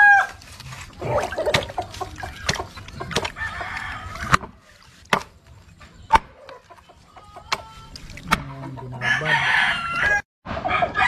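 A machete chopping through a large raw fish on a wooden board, sharp knocks roughly once a second. Roosters crow around it, one call ending just at the start and another near the end, with hens clucking.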